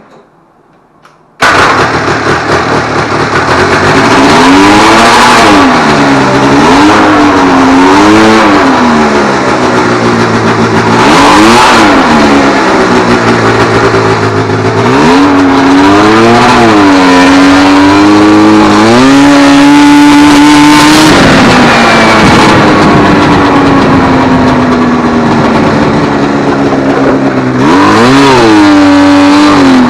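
Yamaha 540 snowmobile two-stroke engine in a homemade buggy, cutting in suddenly about a second and a half in and revving up and down over and over as the throttle is worked. Its pitch holds steady briefly past the middle, sinks, then climbs again near the end.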